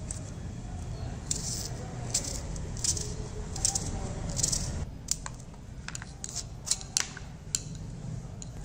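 Small knife chopping a red onion held in the hand: a string of short, crisp, irregular clicks as the blade cuts through the onion.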